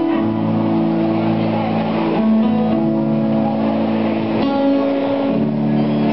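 School choir singing in harmony, with long held notes that change every second or so.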